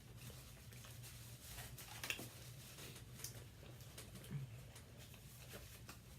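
Quiet eating at a table: a few faint clicks and rustles of food and takeout containers over a steady low room hum.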